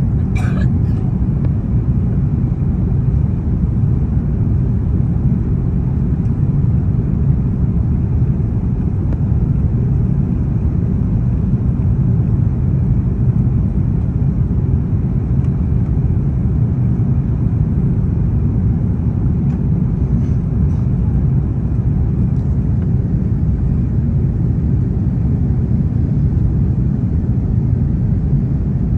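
Steady low rumble of an Airbus A330-300's engines and airflow, heard inside the passenger cabin during the descent to land, with a few faint clicks near the start.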